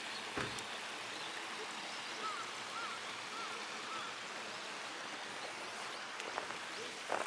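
Steady rushing of running water. Four faint short chirps come about halfway through, and a few crunches of footsteps on gravel come near the end.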